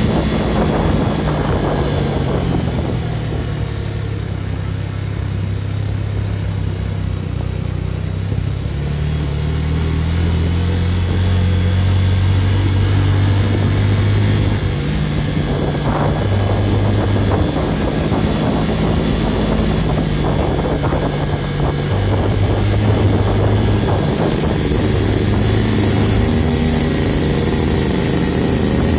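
Small motorcycle engine running along the road, its note shifting up and down every few seconds with the throttle. A hiss grows brighter near the end.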